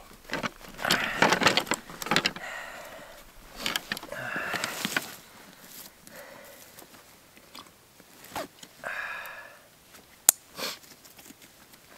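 Deer antler sheds being handled on a backpack: irregular rustling, scraping and clacking of antler against antler and pack fabric, with one sharp click about ten seconds in.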